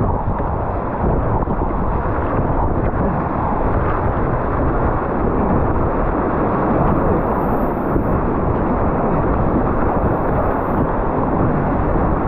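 Rushing whitewater of a river rapid around a racing kayak running through it: a loud, steady, dull rush of churning water with no breaks.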